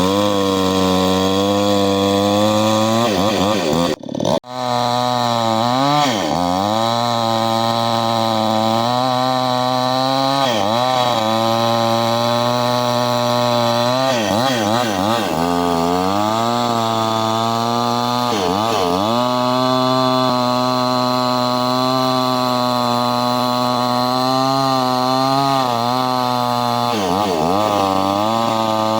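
STIHL two-stroke chainsaw running at high revs, its engine pitch dipping sharply and climbing back again several times. The sound cuts out briefly about four seconds in.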